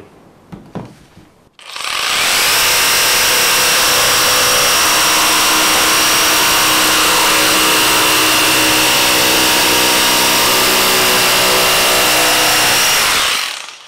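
Bosch GST 18V-155 BC cordless brushless jigsaw cutting through 3 cm pine with the pendulum action at maximum. It starts about two seconds in, runs at an even, steady level with a high motor whine for about eleven seconds, and stops shortly before the end.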